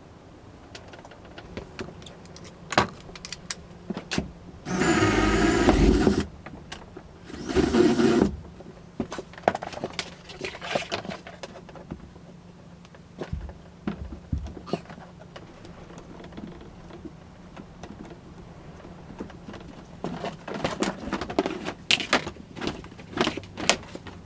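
Cordless power drill whining in two short bursts, the first about five seconds in for a second and a half and the second shorter, amid scattered clicks and knocks of tools and hardware being handled.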